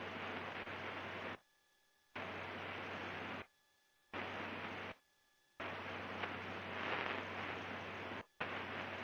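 Steady static-like hiss on the cockpit's headset intercom audio, with a faint low hum, cutting out suddenly to near silence three times in the first half and once more, very briefly, near the end.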